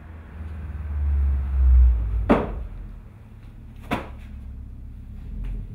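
A low rumble, then two sharp knocks about a second and a half apart.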